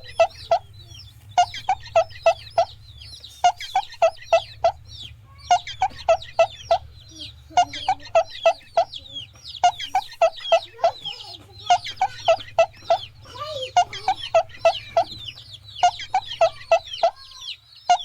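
Chickens clucking in short runs of about four notes roughly every two seconds, over a constant high peeping of chicks. A steady low hum runs underneath.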